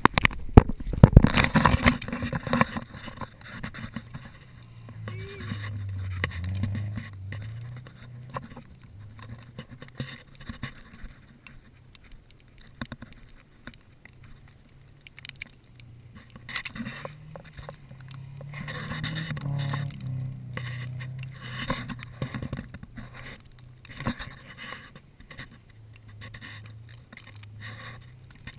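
A vehicle engine running, its low hum rising and easing off a couple of times, mixed with scraping and knocking sounds. The loudest knocks come in a cluster in the first two seconds.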